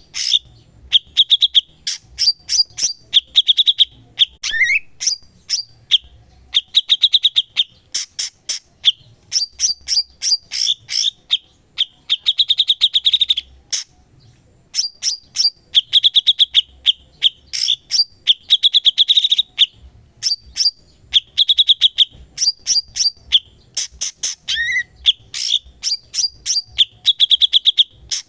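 Cucak cungkok songbird singing continuously: rapid chattering trills and fast strings of sharp high notes in repeated phrases, twice broken by a lower note that slides downward.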